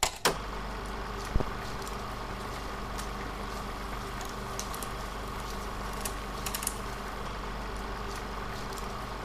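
A steady low electrical hum with a thin steady whine above it, broken by a few sharp clicks just after the start and about a second and a half in, and scattered faint ticks.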